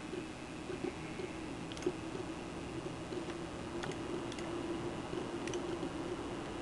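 A handful of sharp, separate computer mouse clicks over a steady low background hum.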